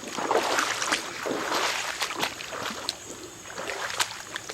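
Creek water running and splashing over rocks, an uneven rushing with many short surges and a sharp click about four seconds in.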